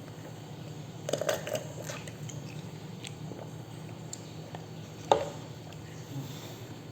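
Close-miked mouth sounds of eating and drinking: a cluster of wet clicks about a second in and a single sharp click a little after five seconds, over a steady low hum.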